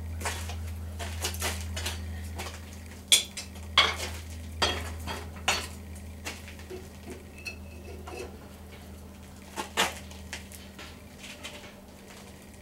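An adjustable wrench clinking against a red-hot twisted round steel bar clamped in a bench vise as the bar is gripped and twisted back. A series of sharp metallic clinks, loudest about three to five seconds in and again near ten seconds, over a steady low hum.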